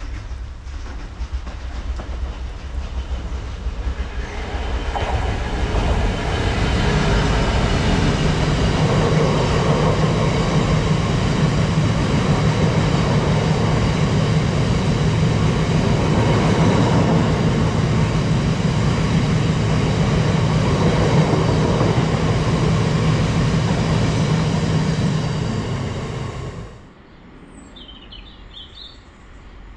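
Freight train of red box wagons passing at speed: a loud, steady rumble that builds over the first six seconds, then cuts off suddenly about 27 seconds in, leaving a quieter background with a few faint high chirps.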